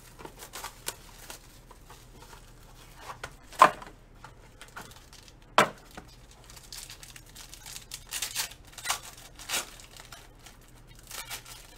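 Hands tearing open and crinkling the foil wrapper of a pack of Panini Gold Standard basketball cards. There are scattered crackles and two sharp rips about three and a half and five and a half seconds in, then a run of crinkling near the end.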